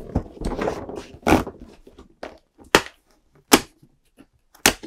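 Large cardboard advent calendar box shifted and turned over with rustling and thuds, then three sharp cardboard cracks as a perforated door is pulled open.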